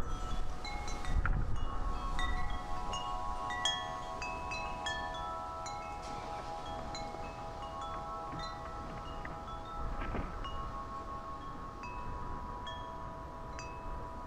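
Wind chimes ringing, several overlapping tones lingering while short higher pings strike all through. Wind rumbles on the microphone underneath, gusting in the first couple of seconds and again about ten seconds in.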